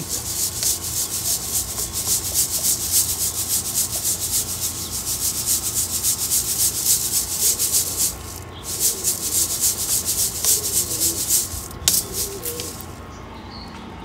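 Pigeon feed of pellets and cracked corn shaken in a round wire-mesh sieve, the grains rasping and rattling over the mesh in quick rhythmic strokes as the dust is sifted out. The shaking breaks off briefly about eight seconds in, then stops near the end.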